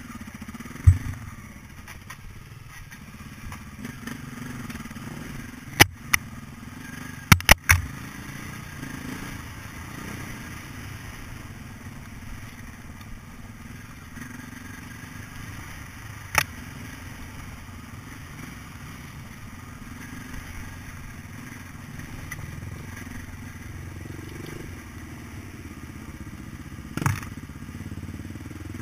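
Dirt bike engine running steadily at trail speed over a rough track, with a few sharp knocks as the bike jolts over the ground, two of them close together about seven seconds in.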